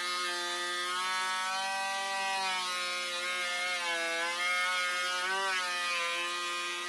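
A Ridgid 13-inch benchtop thickness planer running with a wet plank feeding through it. Its motor whine sags in pitch a few times under the cutting load, most clearly in the middle, over a steady noise of the knives cutting wood.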